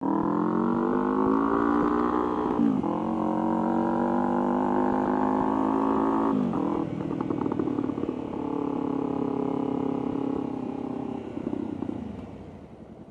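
Yamaha FZ-07's parallel-twin engine running while the bike is ridden. The engine note falls sharply in pitch a few times, about three seconds in, near six seconds and near eleven, with rougher stretches in between, and it grows quieter near the end.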